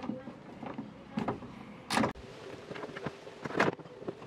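Sharp metal clanks and knocks from a car door's power window regulator assembly being worked loose and pulled out through the inner door panel. The loudest knock comes about two seconds in and another near the end.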